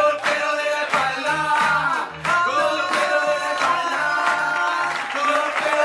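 A song with singing over a steady bass beat.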